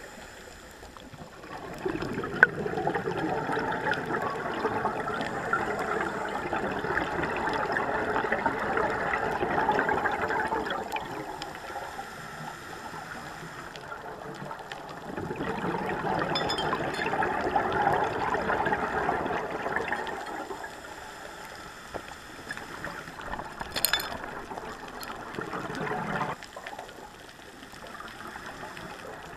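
Scuba diver's exhaled regulator bubbles heard through an underwater camera housing, coming in three long spells of bubbling with quieter pauses between breaths, and a sharp click early on.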